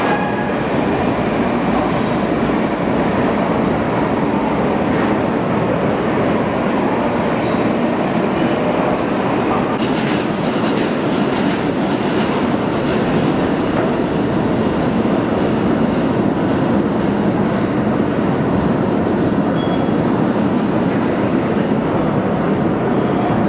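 New York City subway train running through the station, a loud, steady rumble of wheels on the track.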